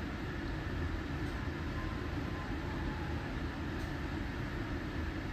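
A steady low mechanical rumble with an even hiss, holding at one level without rhythm or distinct knocks.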